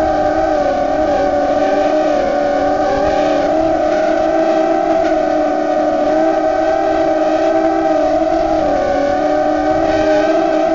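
Whine of a ZMR 150 mini racing quadcopter's DYS 1806 3100Kv brushless motors and propellers in flight, heard from a camera mounted on the frame. The pitch is steady but wavers slightly with throttle, dipping briefly about nine seconds in.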